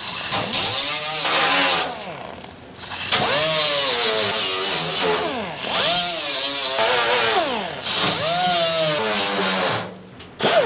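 Handheld pneumatic grinder on an air hose running in four bursts of about two seconds each, cleaning the spot-weld areas of the sheet-steel door panel down to bare metal. Its whine climbs as it spools up and falls away at each release.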